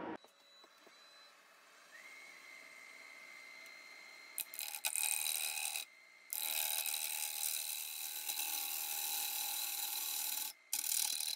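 A wood lathe spins up with a faint, steady whine that rises briefly and levels off about two seconds in. Then a bowl gouge cuts the inside of the spinning curly maple bowl: loud hissing, scraping cuts in a few long passes separated by short breaks.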